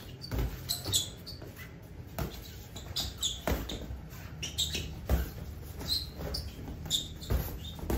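Boxing gloves thudding as punches land during sparring, several times, with sneakers squeaking and scuffing on the floor in the footwork between blows.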